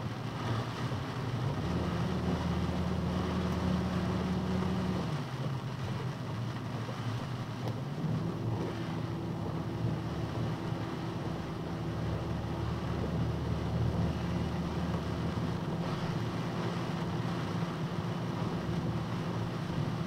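Box truck driving at about 35 mph on a rain-soaked road, heard from inside the cab: steady engine and road drone under a hiss of rain and tyre spray. A low hum fades out about five seconds in and comes back about three seconds later.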